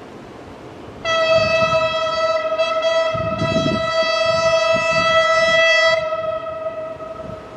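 Horn of the BB 63500-series diesel locomotive BB 64047 sounding one long, steady blast of about five seconds as the locomotive approaches, then fading away; wind noise underneath.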